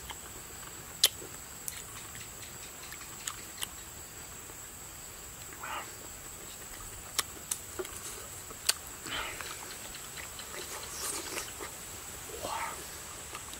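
Close mouth sounds of a man eating ripe jackfruit pods: scattered sharp wet lip smacks and clicks, with a few short chewing and sucking sounds in between.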